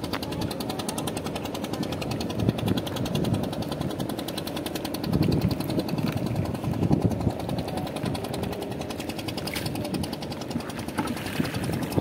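An engine running with a rapid, even knock, with water splashing and dripping as a nylon cast net is hauled up out of the river over the side of a wooden boat.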